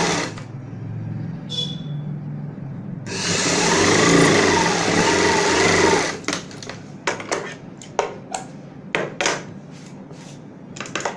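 Sewing machine stitching a single centre seam through layered fabric pieces. It runs slower and quieter at first, then faster and louder for about three seconds with its pitch wavering, and stops about six seconds in. After that come a series of short sharp clicks and rustles as the fabric is handled.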